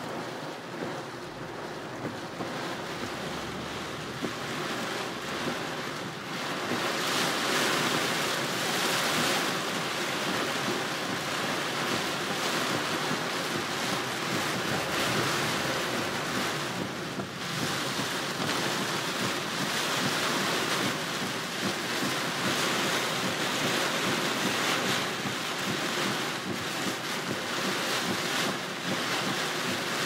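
Heavy rain hitting a car's windshield and roof, heard from inside the car. It grows louder about six seconds in.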